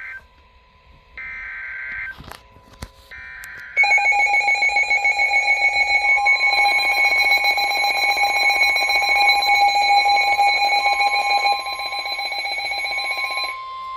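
Emergency Alert System tones on weather radio: the tail of one and two more short bursts of buzzing data tones about a second apart, the digital header that starts an alert. At about four seconds in, the loud, steady EAS attention tone begins and sounds for about ten seconds before it cuts off near the end.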